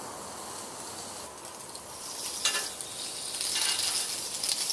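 Salmon fillet sizzling skin side down on a hot, oiled grill plate, with a few crackles; the sizzle grows louder about halfway through.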